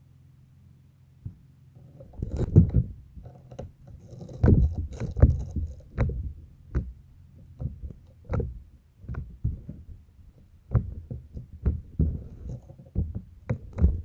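Slime being squeezed and pressed by hand: an irregular string of soft squelches and pops, about one or two a second, beginning about two seconds in.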